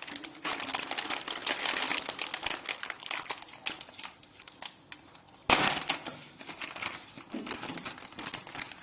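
Packaging crinkling and rustling as it is handled and opened, with a sharp knock about five and a half seconds in.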